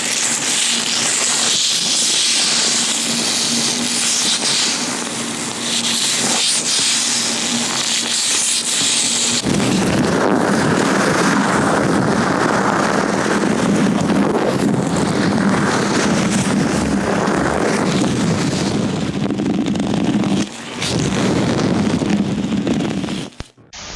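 Latex-gloved hands rubbing and gripping close on the microphone, a loud continuous rustling and scraping. About ten seconds in, the sound turns deeper and fuller. It cuts off abruptly near the end.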